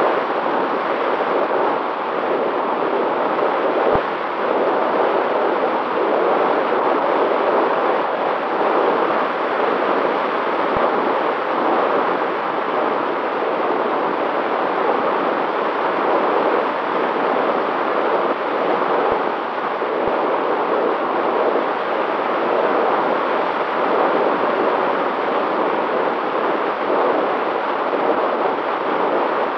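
Steady rush of wind and propeller noise picked up by the onboard camera of a long-range FPV aircraft in flight, with a faint steady motor whine underneath.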